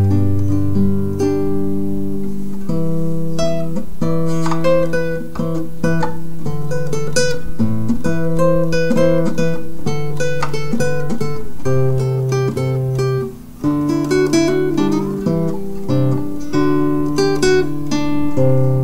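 Instrumental acoustic guitar music: a steady run of picked notes over sustained bass notes, with a brief drop in level about thirteen seconds in.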